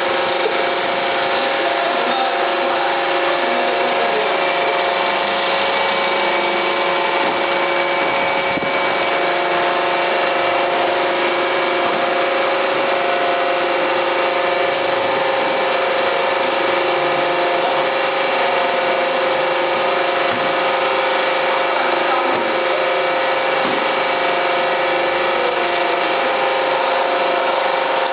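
Vertical hydraulic waste-paper baler running, its hydraulic power unit giving a steady whine of several fixed tones over a constant mechanical noise.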